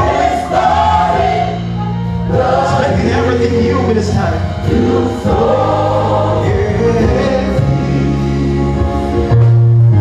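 A man singing a gospel song through a microphone, with a choir singing along over sustained low accompanying notes.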